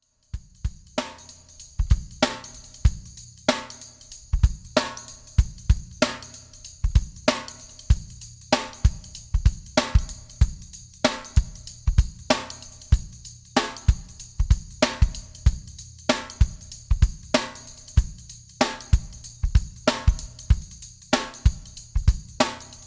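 Background music with a steady drum-kit beat: kick drum, snare and hi-hat, starting just after a brief silence.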